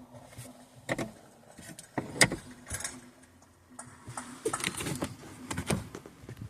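A string of sharp clicks, knocks and rattles from parts of a car interior being handled: a single knock, then the loudest clatter at about two seconds, then a denser run of rattling clicks near the end.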